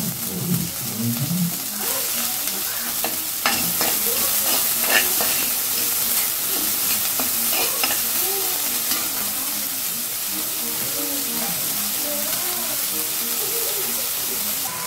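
Chopped onions sizzling in hot oil in a heavy pan, stirred with a perforated steel ladle that scrapes and clacks against the pan, with a cluster of sharp scrapes about four to five seconds in.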